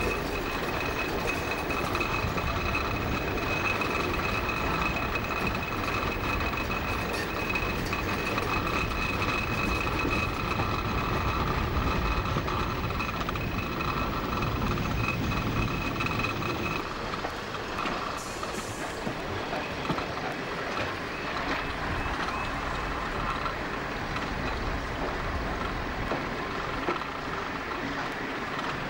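Diesel multiple unit running at speed, heard from an open window on board: steady engine and wheel rumble with wind rush. A steady high-pitched whine sits over it for the first half and fades out a little past halfway.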